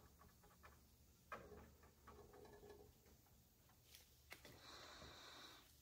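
Near silence: faint room tone with a few soft ticks and a brief soft scraping near the end, as a resin brush is worked on fiberglass.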